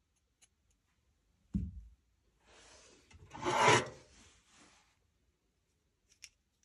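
A low thump, then a scraping, rubbing sound lasting about two seconds that swells to its loudest midway, followed by a couple of faint clicks.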